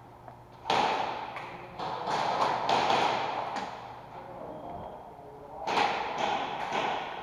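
Airsoft guns firing in an indoor close-quarters arena: a string of sharp shots and impacts in irregular bursts, each echoing off the hall. The loudest comes about a second in, with a cluster between two and three seconds and more near the end.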